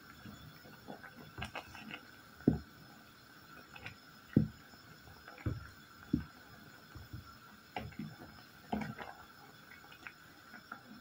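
Wooden spoon stirring and pressing soft boiled fruit pieces in a pot of boiling water, giving a series of irregular dull knocks over soft bubbling.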